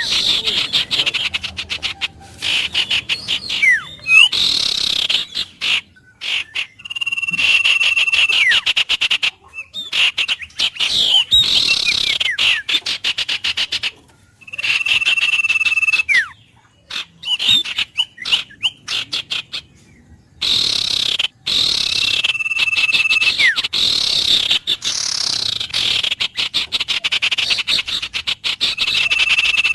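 Wild birds calling: repeated held whistled notes and falling whistles over dense, rapid chirping, with the sound cutting out abruptly several times.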